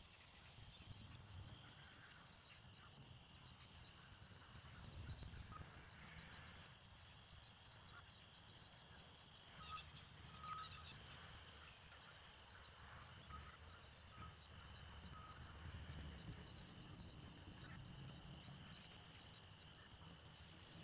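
Faint rural background: a steady, high-pitched insect chorus of crickets over a low rumble, with a few short, faint chirps about halfway through.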